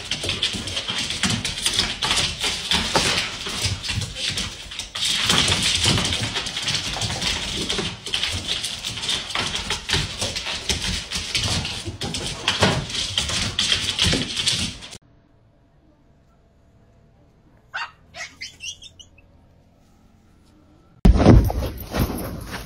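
A large dog barking as it goes after a broom being pushed across a hard floor, over a steady scraping hiss. This stops about fifteen seconds in. After a few quiet seconds, a loud burst of noise starts near the end.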